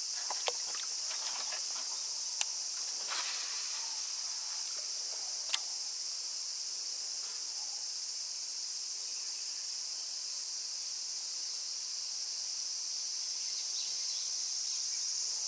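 Steady, high-pitched drone of a summer cicada chorus, with two sharp clicks a few seconds apart.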